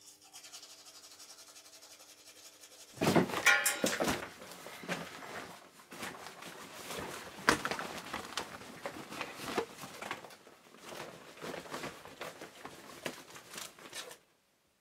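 A toothbrush scrubbing faintly for about three seconds, then a louder run of rustling, bumps and clicks as a plastic folder and other things are handled and packed into a backpack; it cuts off sharply near the end.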